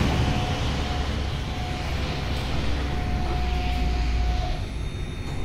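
Tammermatic T700 car wash drying blowers winding down at the end of the drying cycle. The loud rush of air drops away at the start, leaving a fading hum and a faint whine that stop a little after four seconds in.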